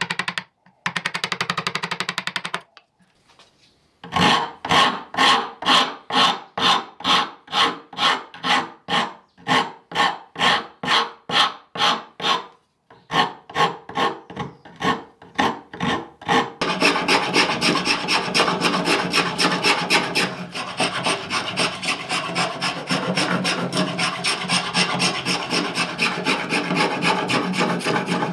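Hand tools shaping a wooden saw handle. After a brief bout of chisel work comes a file drawn in long, even strokes, about two a second. Near the middle it gives way to a small spokeshave scraping in quick, short strokes.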